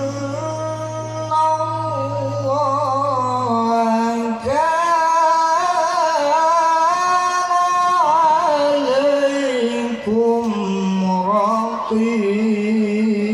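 A male qari reciting the Quran in melodic tilawah style into a microphone: one voice holding long notes with wavering ornaments, sinking to a lower pitch near the end. A steady low hum runs under the first few seconds.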